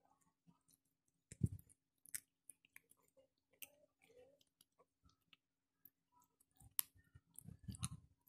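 Kittens chewing and crunching scraps of food: faint, scattered small clicks and crunches, with a louder soft thump about one and a half seconds in.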